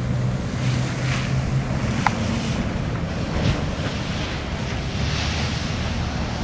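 Wind buffeting the microphone over crashing surf, with the low steady drone of a Coast Guard 47-foot motor lifeboat's diesel engines as it drives through breaking waves. There is a sharp tap about two seconds in.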